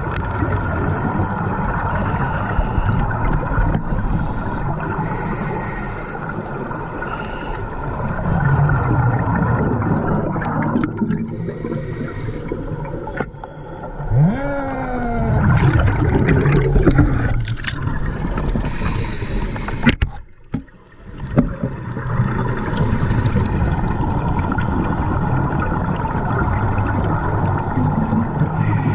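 Muffled underwater noise on a scuba dive: a steady drone with bubbling and gurgling from the divers' regulators. About halfway through a short sound rises and falls in pitch, and a little later the noise drops out briefly.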